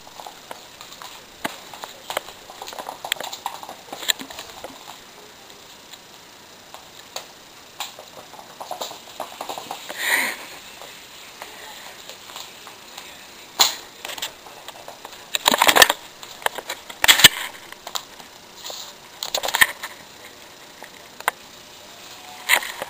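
Irregular taps, scrabbles and thumps of a kitten running and pouncing on a wooden floor, with several louder knocks in the second half.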